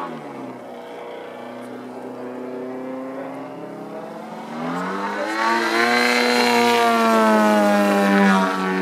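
Engine and propeller of an Extra 300 radio-controlled aerobatic model plane in flight. The note drops and fades at first, then rises in pitch and gets louder from about halfway as the plane comes closer, and drops again near the end.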